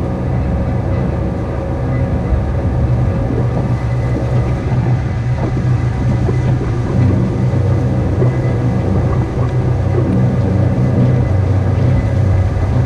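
A machine or engine running steadily with a constant low drone and hum.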